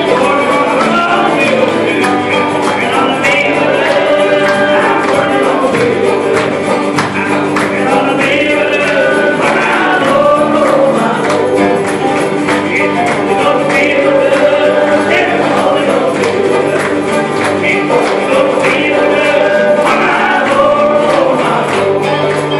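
A group of voices singing a gospel song together, accompanied by strummed acoustic guitars keeping a steady beat.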